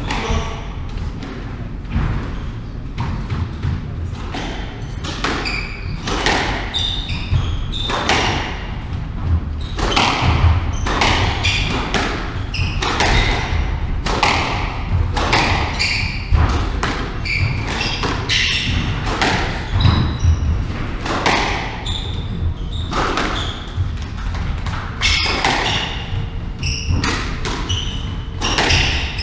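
A squash rally: the ball is struck by racquets and smacks off the walls and glass in a fast, irregular run of sharp hits. Shoes give short squeaks on the wooden court floor in between.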